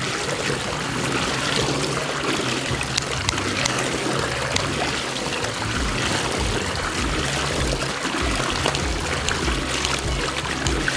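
Water rushing and churning as a large whirlpool swirls down a drain hole, a steady splashing noise. A music bass line runs underneath.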